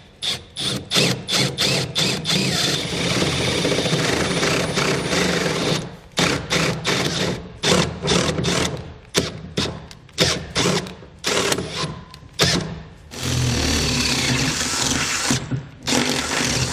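Handheld power drill with a large twist bit boring out pilot holes through the steel floor of a pickup truck bed, enlarging them to full size. The trigger is pulsed in many short bursts, with two longer steady runs, one about three seconds in and one near the end.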